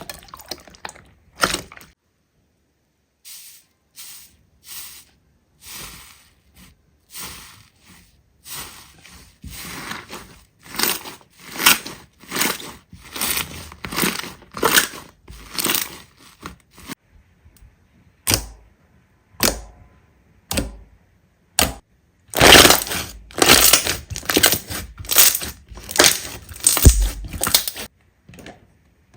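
Slime being squeezed and pressed by hand: a series of short crackling squelches, sparse at first, then coming fast and louder over the last seven seconds or so.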